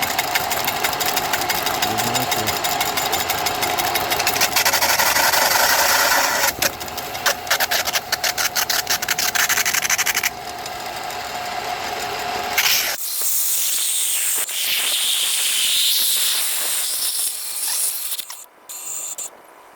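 Old belt sander running hard against a full aluminium drink can, its motor and belt whining steadily, then turning choppy and uneven from about six seconds in; the belt is thought to be loose. About thirteen seconds in the motor falls away and a steady hiss follows as the shaken can, sanded through, sprays out its fizz.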